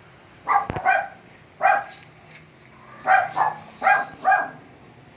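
A dog barking: a run of about seven short barks, mostly in quick pairs.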